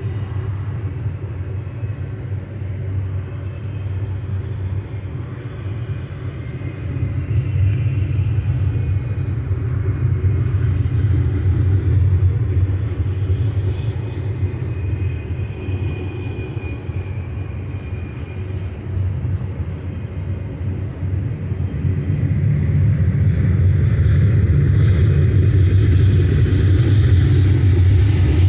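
Double-stack container cars of a freight train rolling past: a steady rumble of steel wheels on the rails, with a faint high squeal about halfway through. The rumble grows louder over the last few seconds.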